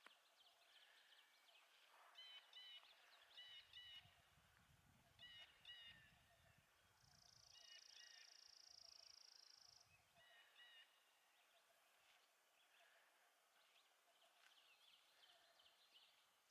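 Faint birdsong: short clusters of chirps repeated every second or two. A steady high buzz runs for about three seconds in the middle, and a low rumble sounds a few seconds in.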